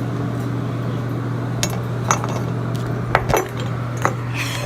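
A handful of short, sharp clicks and clinks of small hard objects being handled, over a steady low hum.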